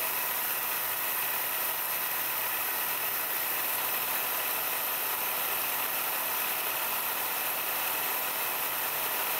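Milling machine spindle running a small end mill through an aluminium plate, steady throughout, under the constant hiss of the mist-lubrication and compressed-air nozzle blowing on the cutter.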